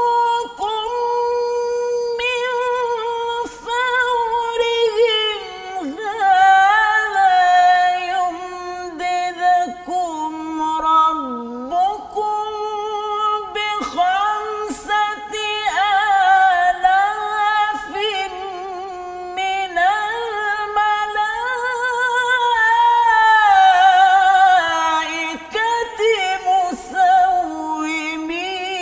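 A man reciting the Quran solo in the melodic tilawah style. His voice is high and holds long, wavering notes with ornamented runs, pausing briefly for breath a few times.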